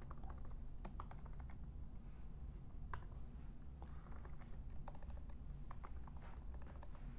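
Typing on a computer keyboard: irregular keystroke clicks, some in quick runs, over a low steady hum.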